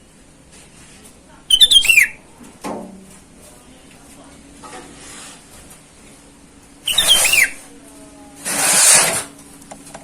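Sooty-headed bulbul calling: two short bursts of quick, falling whistled notes, about a second and a half in and again about seven seconds in. Near the end comes a loud, harsh rush of noise with no clear pitch.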